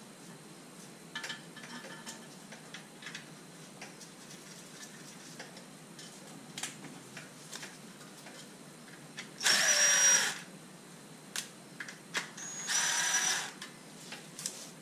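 Cordless impact driver running in two bursts of about a second each, a few seconds apart, snugging the oil pan bolts up to about finger tight before they are torqued in sequence. Light clicks and taps of handling the bolts come before.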